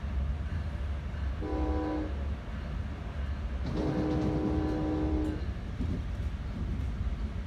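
Nathan K5LA five-chime air horn on a Bombardier MultiLevel cab car, heard from inside the moving train: a short blast, then a longer blast about two seconds later, over the steady rumble of the wheels on the rails.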